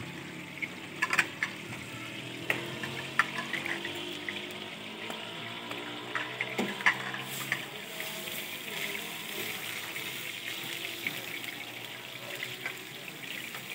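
Chapli kebabs deep-frying in a wide wok of hot oil: a steady sizzle with fine crackling, and a few sharp clicks in the first seven seconds.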